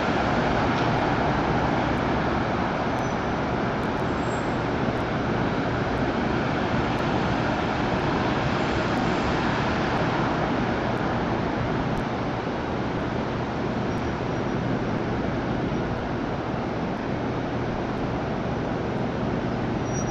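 Steady city traffic noise: an even rush with no distinct events that eases slightly about twelve seconds in.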